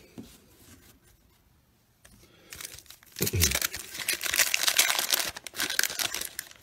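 1990 Bowman baseball card pack wrapper being torn open and crinkled by hand, starting about two and a half seconds in after a near-quiet pause.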